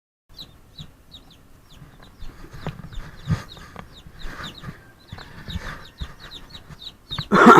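Baby chicks peeping: quick short high cheeps, several a second, with scattered knocks. A much louder, lower sound comes near the end.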